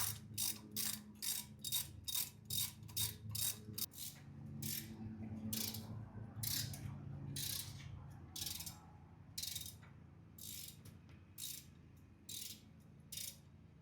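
Hand ratchet clicking as intake manifold bolts are tightened down. There are quick strokes, about three clicks a second, for the first few seconds, then slower clicks about one a second.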